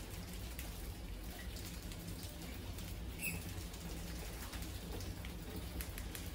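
Many mice scrabbling and scratching against one another and the glass of a crowded trap, a steady patter of small claw ticks, with one short high squeak about three seconds in. A low steady hum runs underneath.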